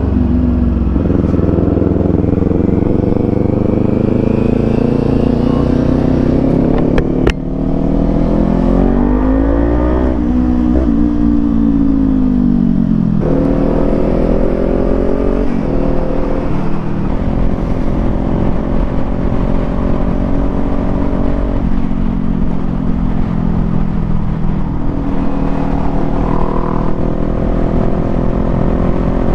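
Kawasaki Z400 parallel-twin engine under way. It pulls up through the revs with a gear change about seven seconds in, rises again, and slows off the throttle around ten to thirteen seconds in. It then picks up once more and holds a steady cruising pitch, over a constant low rumble of wind.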